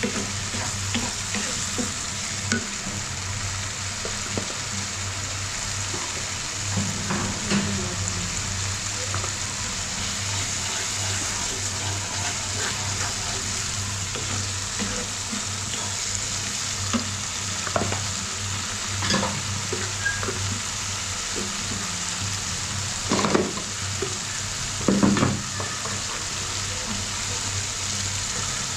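Spice paste (masala) sizzling in hot oil in a pan while being stirred and fried down, the stage before the liver goes in. A few short knocks and scrapes of the spatula against the pan, the loudest twice shortly before the end.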